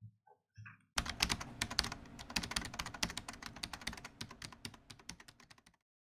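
Rapid typing on a computer keyboard, many keystrokes a second, starting about a second in and fading out near the end.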